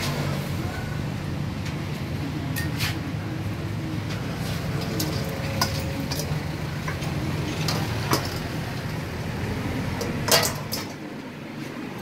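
A metal serving spoon clinks and scrapes against a stainless steel mixing bowl and pans as salad is plated. It makes a handful of sharp knocks, the loudest and most ringing about ten seconds in, over a steady low background rumble.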